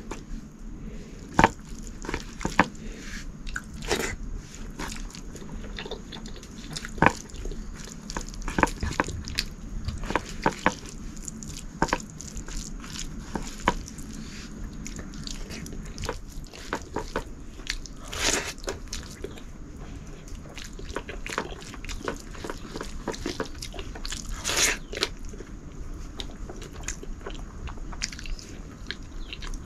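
Close-up eating sounds: a meal of rice, red lentils and potato curry being chewed and crunched, with irregular sharp clicks throughout and two longer, rougher sounds in the second half.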